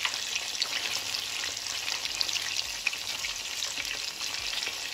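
Bread-coated mozzarella cheese balls deep-frying in hot oil in a steel pan: a steady sizzle with fine crackling.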